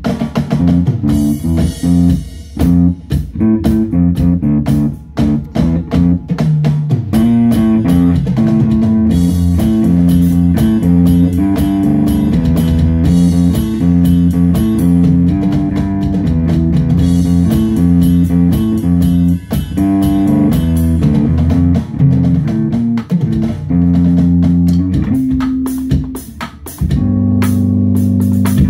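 Instrumental jam: a guitar plays a repeating low riff over a drum kit, with no vocals.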